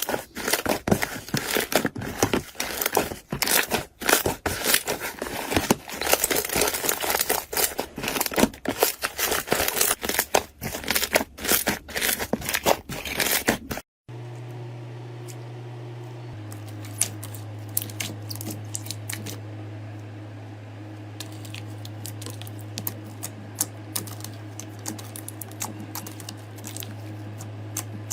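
Slime being handled by hand, with dense crackling and popping for about the first half. It then cuts suddenly to a quieter clip: a steady low electrical hum with scattered small clicks and pops from the slime.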